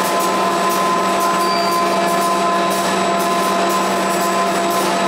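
YC1650-5C multi-colour flexographic printing press running: a steady mechanical hum and whine with several constant tones over an even machine noise.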